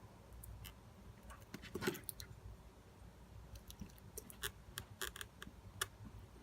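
Faint scattered small clicks and ticks of hands and tools working on an opened iPhone 6 as an adhesive strip is pulled from under its battery, with a short scratchy cluster about two seconds in the loudest.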